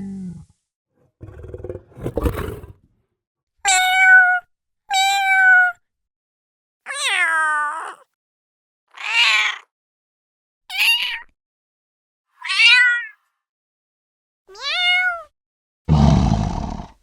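A series of separate house cat meows, about eight, each under a second long, with silent gaps between them, some falling in pitch and some rising then falling. About two seconds in there is a short noisy burst, and near the end a loud, rough, low sound.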